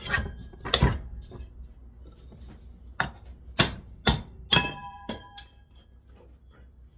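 Sharp metal knocks and clanks as the cast-aluminium covers of a bench grinder are knocked loose. Two hits come near the start and five more come quickly about halfway through. One of the later ones rings briefly with a metallic tone.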